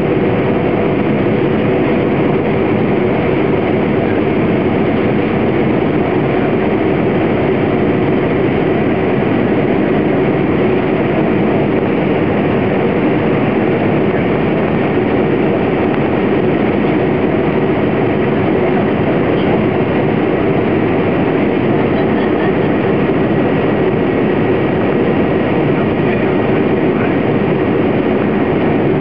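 Cabin noise of an Airbus A320 in flight, heard from a seat just ahead of the right engine: a steady, loud rush of IAE V2500 turbofan and airflow noise with a faint steady hum.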